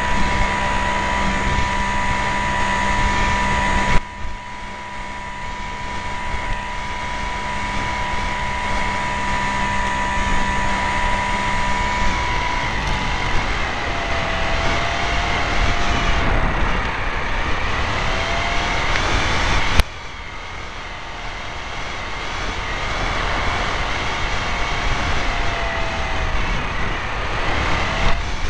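Model airplane's motor and propeller droning steadily with wind rushing past, heard from on board. The sound drops sharply about four seconds in and again about two-thirds of the way through, then builds back up gradually each time.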